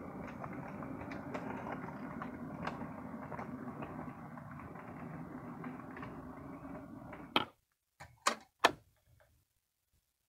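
HO scale model diesel locomotive running along the track with its freight cars in tow, a steady mechanical running noise dotted with small clicks from the wheels. Near the end come three sharp clicks.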